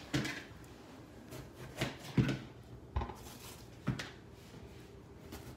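A knife knocking on a cutting board while bell peppers are cut: about five separate knocks, irregularly spaced.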